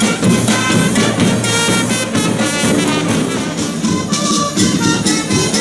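Music with brass instruments playing.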